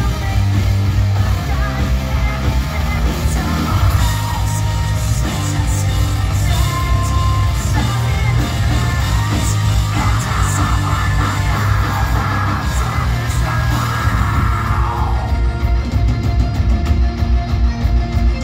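A post-hardcore band playing live through a club PA: distorted electric guitars, bass and drums with yelled and sung vocals. It is heard from within the crowd, the sound heavy and bass-laden.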